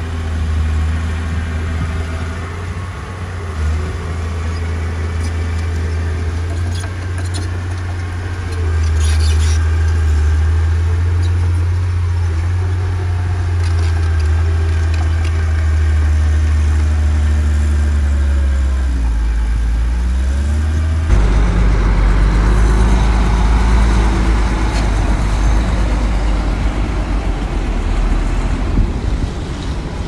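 Heavy diesel engines of earthmoving machinery (bulldozer and dump trucks) running steadily, the engine pitch dipping and rising in places as they work. The sound changes abruptly about two-thirds of the way through.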